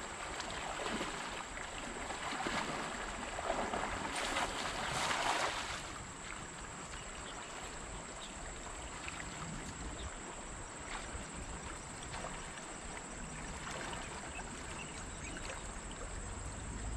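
Steady rushing of a fast-flowing river, with a louder rustling stretch from about two to six seconds in and a thin steady high whine behind it.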